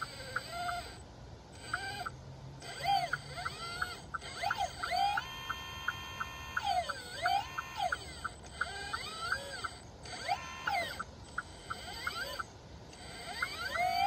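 Hydraulic pump motor of an RC articulated dump truck whining, its pitch rising, holding and falling again and again as the steering hydraulics are worked. A steady light ticking about three times a second runs underneath.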